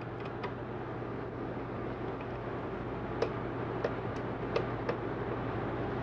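Small, sharp metal clicks and ticks of screws being unscrewed and handled in the metal drive bay of a Power Mac G5, a few at the start and four more spaced out in the second half, over a steady low hum.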